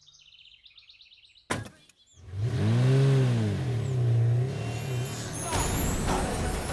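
Faint bird chirps, then a car door shuts about a second and a half in. A car engine follows, its revs rising and falling once before settling, and near the end street traffic noise takes over.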